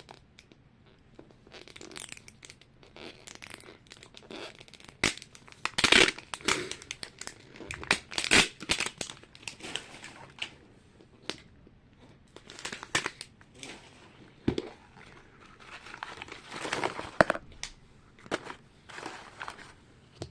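Plastic wrapping crinkling and tearing as a Disney Mini Brands capsule ball is unwrapped and opened by hand, in irregular bursts with a few sharper, louder crackles around six and eight seconds in.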